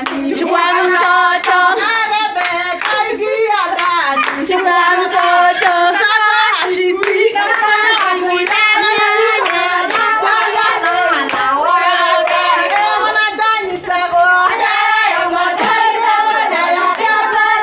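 Women singing a song together, with hand claps throughout.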